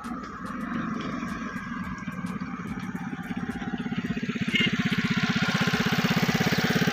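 Engine running with an even, rapid chugging pulse that grows louder and plainer over the second half.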